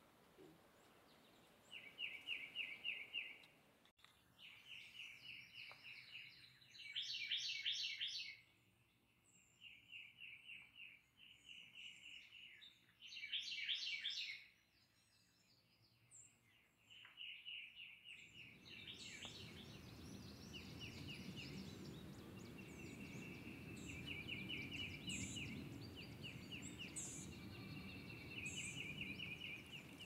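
Songbirds singing: one bird repeats a short, rapid trill about every second or two, with higher, buzzier phrases from another bird twice in the first half. About two-thirds of the way in, a steady low rushing noise starts under the singing.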